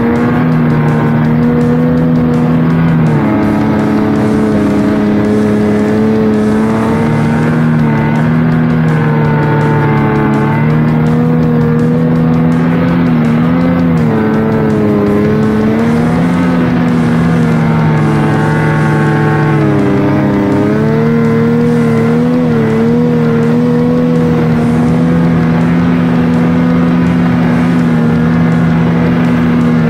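Two-stroke mountain snowmobile engine running hard under throttle in deep powder. Its steady pitch shifts and wavers several times as the rider works the throttle.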